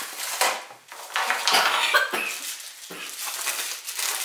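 Irregular rustling, knocks and clatter of packaging and a long electric grill plate being handled as it is unboxed.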